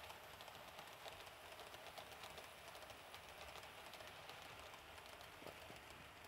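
Faint running of 00 gauge model trains on the layout track: a soft, steady rolling hiss with light, irregular clicking of the wheels over the rail joints.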